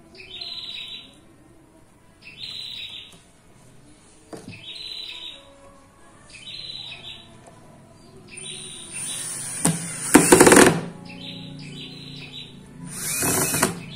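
Cordless drill running in short bursts as it bores into a plywood cabinet door through a wooden hinge jig, about ten seconds in and again near the end. A bird chirps over and over, about once a second, throughout.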